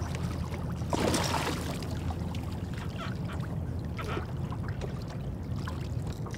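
Boat engine running steadily at trolling speed, with a brief burst of water-like noise about a second in and a few faint knocks after.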